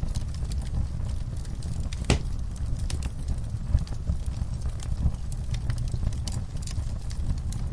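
Logs burning in a fireplace: a steady low rumble of flames with scattered sharp crackles and pops, one louder pop about two seconds in.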